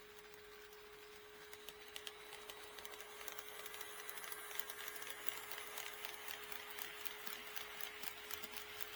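HO-scale model train running past, its wheels clicking rapidly over the track joints while the motor runs, growing louder from about three seconds in. A steady high hum sounds throughout.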